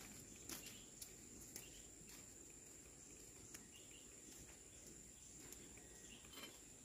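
Near silence, with a faint high-pitched insect call held steady throughout and a few faint ticks.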